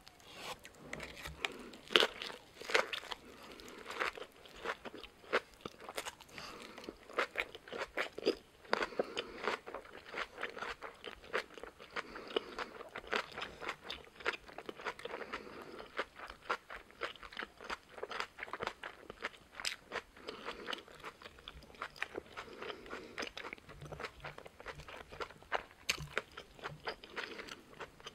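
Close-up crunching and chewing of a bossam wrap: a raw napa cabbage leaf around boiled pork. There is a loud crisp bite about two seconds in, then dense, crunchy chewing.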